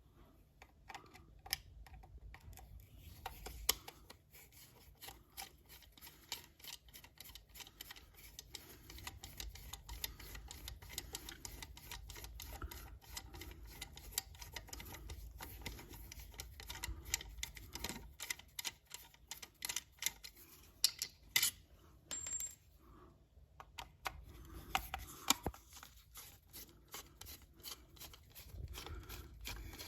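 Irregular small clicks, taps and light scrapes of hand tools and hands working on a wall socket outlet as it is disconnected, with a brief high beep about two-thirds of the way through.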